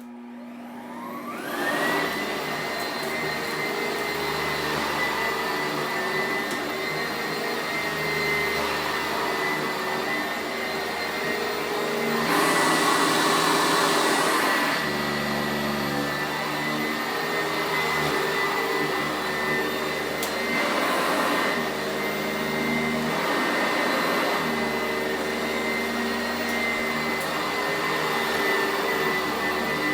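Sanitaire SC889A commercial upright vacuum cleaner switched on, its motor winding up to speed with a rising whine over about two seconds and then running steadily with a high whine. About twelve seconds in, the rushing sound swells louder for a couple of seconds, with a smaller swell near twenty seconds.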